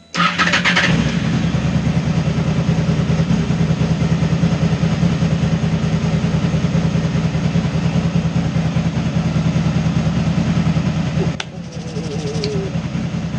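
Honda VFR800's V4 engine idling steadily. It comes in abruptly with a brief louder burst at the start; near the end there is a click and it runs a little quieter.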